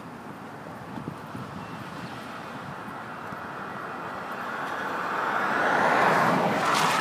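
A road vehicle passing on wet pavement: its tyre hiss swells over the last few seconds, is loudest about six seconds in, then starts to fade.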